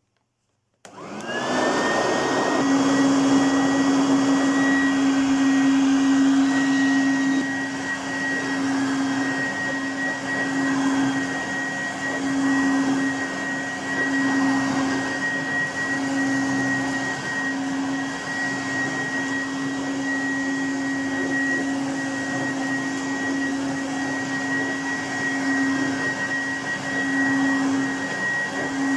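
Goblin Laser 2200X upright vacuum cleaner switched on about a second in: the motor whines up to speed, then runs steadily with a high whine and a lower hum that swells and dips slightly in loudness.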